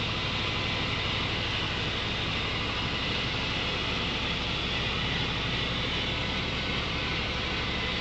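EZ Boardwalk 40 band sawmill cutting a slab off a log: the engine runs steadily under load beneath the steady hiss of the band blade and spraying sawdust.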